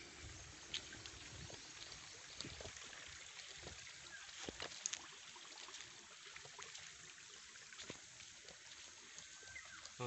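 Quiet outdoor ambience: a faint steady hiss with scattered soft taps and rustles from a person walking.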